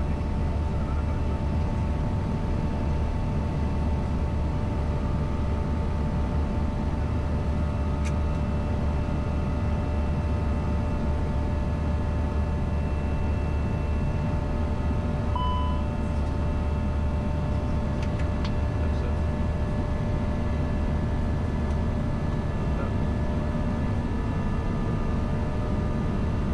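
Steady flight-deck noise of an Airbus A320 in its climb after takeoff: a constant low rumble of engines and airflow with a faint steady hum on top. A short beep sounds about fifteen seconds in.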